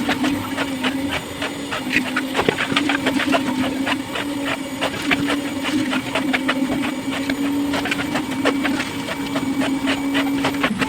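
A motor-driven machine used in column concreting runs with a steady, unchanging hum, with many sharp clicks and rattles, several a second, over it.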